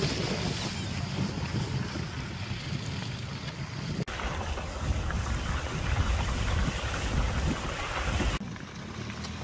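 Wind buffeting the microphone outdoors, a steady low rumbling noise, which changes abruptly twice, about four and eight seconds in, where the footage cuts.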